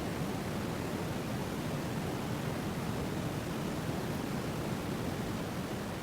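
A steady, even rushing noise, heaviest in the low range, switched on and played as a calming noise.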